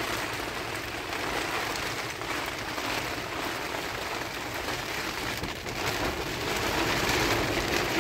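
Heavy rain falling on the fabric of a tent, heard from inside: a steady, dense patter.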